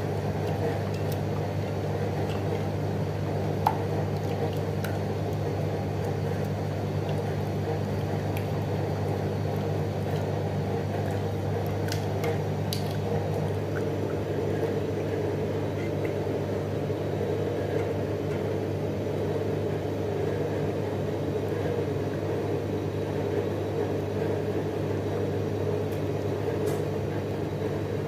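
Wire whisk stirring thin cheese sauce in a stainless steel saucepan: continuous wet swishing with a few faint ticks of the whisk against the pan, over a steady low hum.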